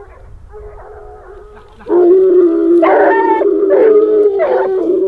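A pack of hunting hounds baying in chorus on the trail of game. Faint at first, the baying turns loud about two seconds in, with several long, overlapping howled notes.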